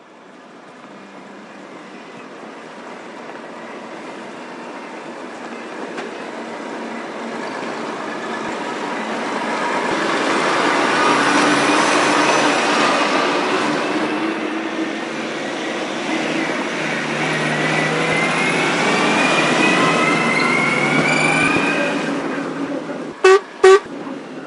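A wheeled dumper's engine drawing near and growing loud, easing off slightly, then revving up with a rising whine. Two short horn toots follow near the end.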